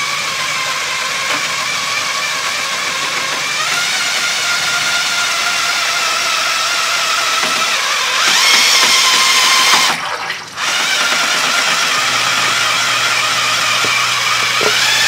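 Cordless drill with a paddle mixer whining steadily as it stirs sugar into hot water in a plastic bucket to make sugar syrup. The motor speeds up about three seconds in, stops briefly near ten seconds, then runs on.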